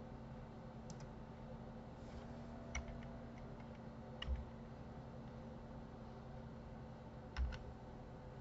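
A few scattered clicks of a computer keyboard and mouse, some in quick pairs, over a faint steady electrical hum.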